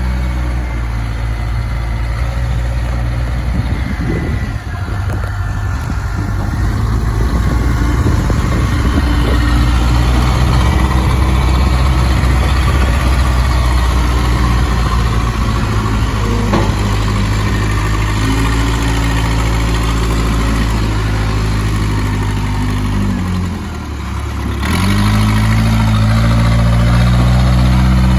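Case 580K backhoe's diesel engine running, its speed shifting up and down; it drops briefly about 23 seconds in, then speeds up again about 25 seconds in.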